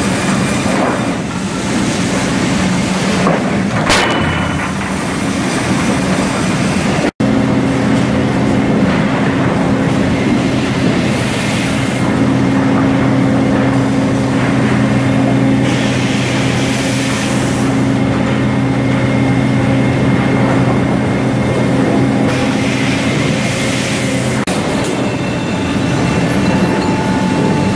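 Lumber mill machinery running loud and steady: chain conveyors and feed rollers moving boards, with a sharp clank about four seconds in. After a brief break in the sound, a steady droning hum, broken three times by short hissing bursts.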